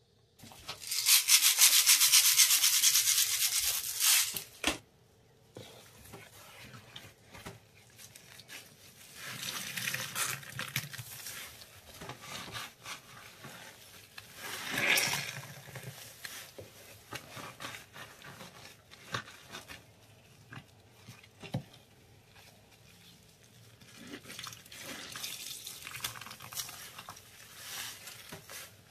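Gloved hands squeezing and kneading wet paste mixed with small beads: soft squelches, rubbing and small crackles that come and go. Near the start, a loud hiss lasting about three seconds.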